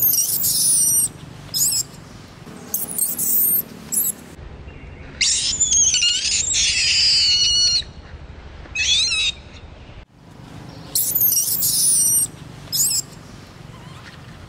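Infant long-tailed macaque giving a run of high-pitched, wavering screams, about eight cries with the longest lasting over two seconds near the middle, as it begs to nurse from its mother.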